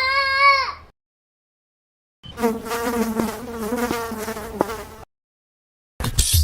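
Insect buzzing sound effect: a steady, even buzz lasting about three seconds, starting a couple of seconds in. Before it, the last moment of a wailing cry cuts off.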